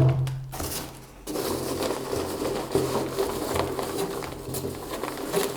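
Packaging being handled and opened by hand: a knock at the start, then continuous scraping and rustling with many small clicks.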